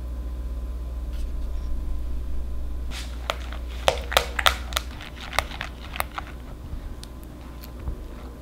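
Wire whisk stirring cheesecake batter in a glass bowl, clinking sharply against the glass in a quick run of knocks from about three seconds in, then lighter ticks, over a steady low hum.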